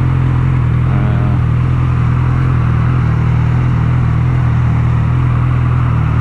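Suzuki GSX650F inline-four engine running at a steady, even pitch while riding, with wind rushing over the microphone.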